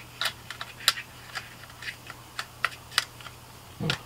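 Irregular sharp plastic clicks and taps as a Neewer CN-160 LED video light and its snap-in battery adapter plate are handled and fitted together, with a duller low thump near the end.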